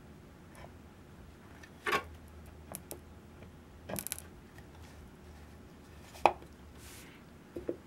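Small wooden box being handled on a bench: a few scattered light wooden knocks and clicks as its hinged lid is closed and the box is turned over and set down. The sharpest knock comes about six seconds in.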